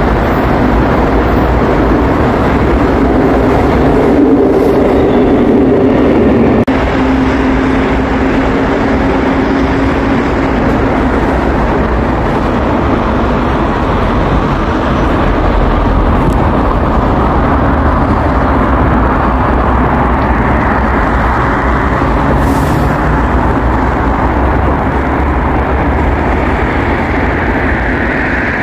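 Subway train running, a loud, steady rumble and rush of wheels on track. A whine climbs slowly in pitch over the second half.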